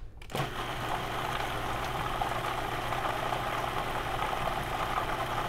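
Food processor motor running steadily, starting a moment in, as it purées strawberries and banana into a smooth ketchup.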